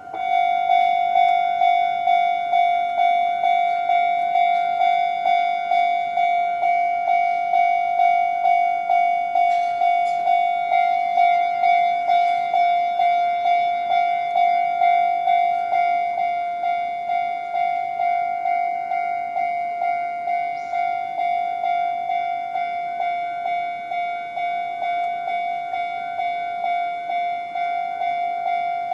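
Japanese level-crossing warning alarm ringing: an electronic bell tone struck over and over in a quick, even rhythm. It starts suddenly, signalling that a train is approaching and the crossing is closing.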